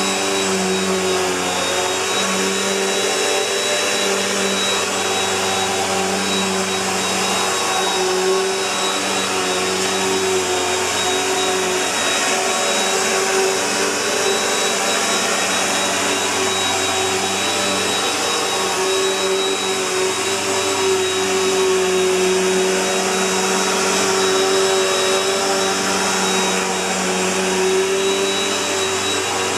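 Bissell PowerLifter Bagged Pet upright vacuum cleaner running steadily, a rush of airflow with a high-pitched whine over it.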